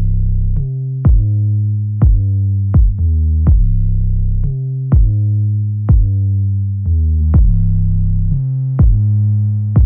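Electronic background music with a steady drum-machine beat over deep synthesizer bass notes.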